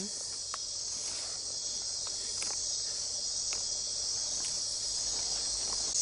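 Chorus of rainforest night insects, a dense, steady high-pitched shrill, with a few faint clicks scattered through it.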